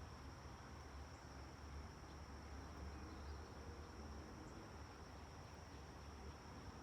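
Near silence: quiet room tone with a faint, steady high-pitched whine and a low hum underneath.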